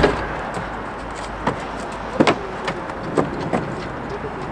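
A few short knocks and clicks of things being handled at a van's open rear hatch and sliding door, over a steady background noise.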